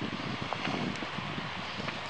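Wind buffeting the microphone over the steady rush of the river, with a few faint clicks.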